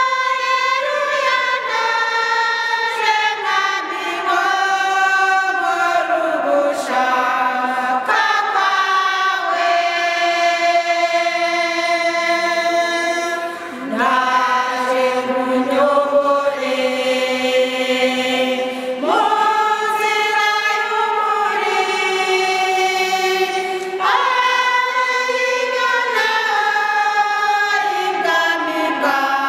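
Church choir, mostly women's voices, singing a hymn in long held notes, with the phrases moving to new chords every few seconds.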